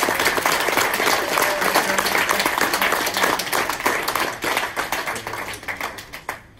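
Audience clapping and applauding, dying away over the last second or so.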